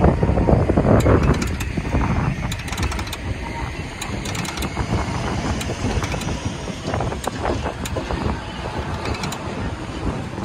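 Road traffic rumbling over the crossing, loudest in the first second or so and then easing to a steadier background, with wind on the microphone and scattered light clicks.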